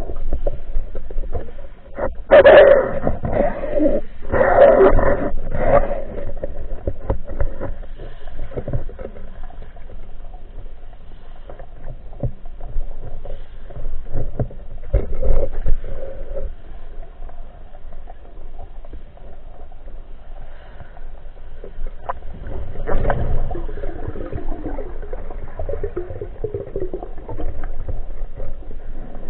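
Muffled underwater noise heard through a camera housing mounted on a pneumatic speargun: water sloshing and bubbling, with bursts of rustling and knocking as the gun and diver move, loudest a couple of seconds in and again near the end.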